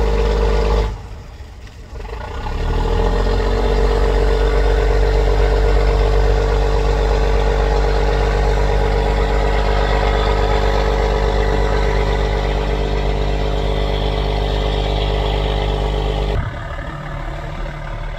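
The engines of a three-engine barge running steadily while it goes astern. The sound drops abruptly to a quieter, thinner run about a second in, returns after a second or so, and drops again near the end.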